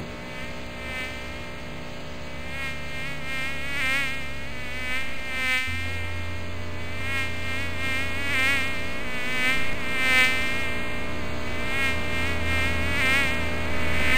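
Buzzing of a flying insect's wings, a fly-like drone that wavers up and down in pitch and swells and fades as it passes. Under it runs a steady low electrical hum that grows louder a little before halfway.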